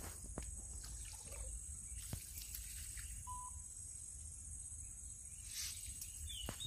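Faint splashing and a few sharp clicks as a mesh net fish trap is handled and shaken out in shallow river water. A steady high insect chirr runs underneath.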